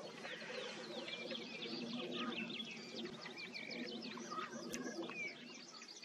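Black grouse cocks rookooing at their spring courtship lek: a continuous low, bubbling coo, with small songbirds chirping over it.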